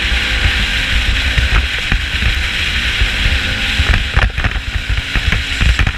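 Steady wind noise and low engine rumble from a vehicle on the move, with scattered knocks and rattles from a GoPro that is not snapped in tight on its mount.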